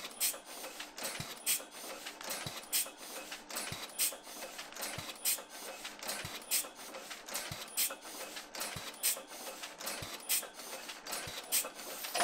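Late-1960s Original Heidelberg automatic platen press running, a steady mechanical clatter with a louder clack about every second and a quarter. It stops suddenly at the very end.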